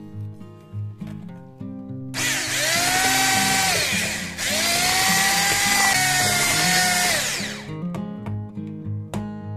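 Electric hand mixer whirring as its beaters work flour into cake batter. The motor whines up about two seconds in, slows and picks up again briefly near the middle, and winds down about two seconds before the end. Soft acoustic guitar music plays underneath.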